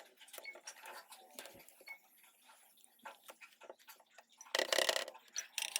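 Light clicks and clinks of small hard tools and parts being handled on a repair bench, with a denser patch of scraping and rattling about four and a half seconds in.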